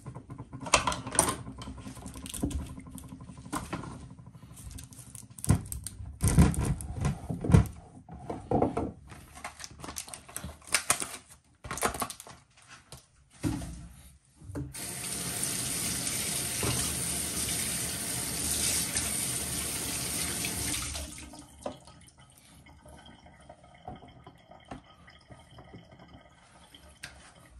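Kitchen tap running steadily into a sink for about six seconds past the middle, water for washing a rack of lamb. Before it come scattered knocks and clatter of things handled at the sink.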